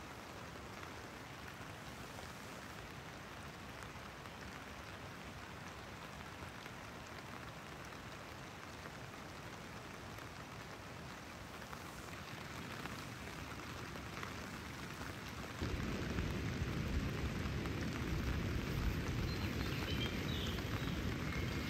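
Steady rain falling, an even hiss. About two-thirds of the way in it turns louder, with a low rumble underneath.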